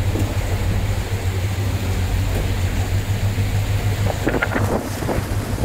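Passenger boat's engine running with a steady low drone under a rush of wind and water, with some short gusts from about four seconds in.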